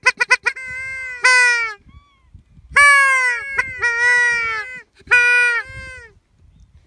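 Paradise shelduck calls: a quick run of short notes at the start, then a series of long, loud, high-pitched calls, each falling in pitch at its end.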